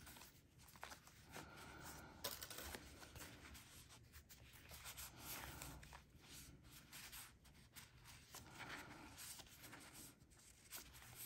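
Faint rustling and flicking of paper planner sticker sheets as a stack is leafed through by hand, with scattered soft clicks of the sheets against each other.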